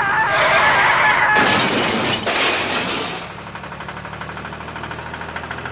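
A loud crashing, breaking sound lasting about two seconds, followed by a low, steady engine-like hum.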